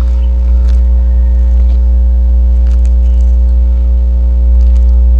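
Steady low hum, loud and unchanging, with a few faint clicks of small metal parts being handled.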